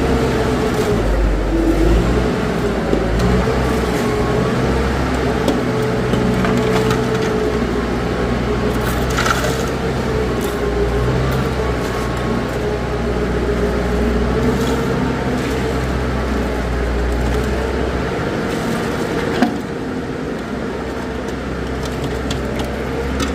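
Crunching and scraping from concrete being worked by hand with shovels, with a few sharp knocks, one standing out about 19 seconds in. Underneath runs a steady engine hum.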